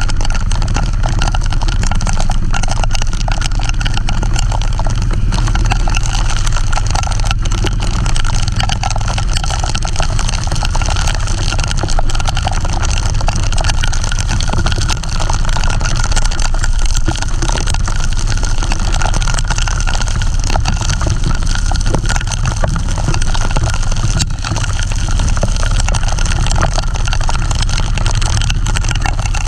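Motorcycle on the move: a steady, loud run of engine and road noise with a heavy low rumble, holding level throughout.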